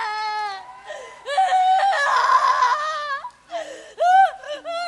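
An actress's wordless outbursts on stage: high cries, gasps and laughter-like pulses in about three bursts, sliding and breaking in pitch.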